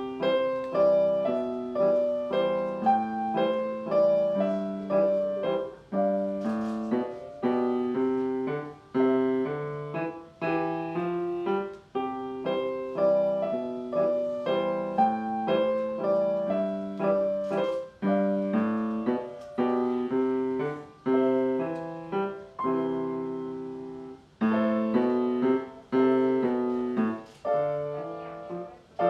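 Piano duet played by two performers: a lively piece of clearly struck notes and chords that begins at the very start, moving in phrases with a brief break about every six seconds.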